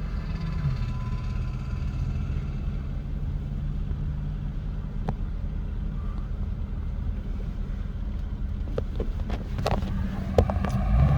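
Steady low road and engine rumble of a car heard from inside while driving, with a few brief clicks near the end.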